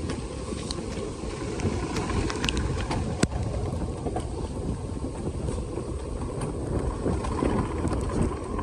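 Mountain coaster sled rolling fast down its rails, a steady rumble mixed with wind buffeting the phone's microphone. There is a sharp click about three seconds in.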